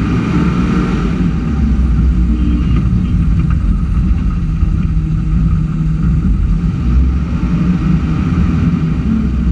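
Utility tractor rig (yard tractor) engine running steadily under way, heard from inside the cab.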